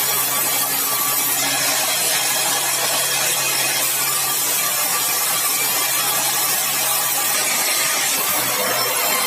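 Sawmill saw cutting through a large, dry, hard red balau log: a steady loud cutting noise over a low, even hum from the saw's motor.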